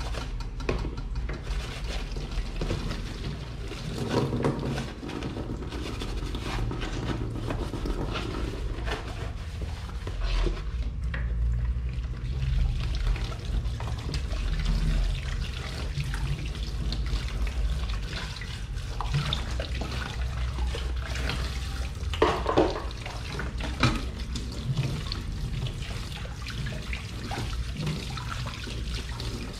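Water running from a kitchen tap into a sink as dishes are washed, with splashing and scattered clinks of dishes and utensils, two of them sharper about 22 and 24 seconds in.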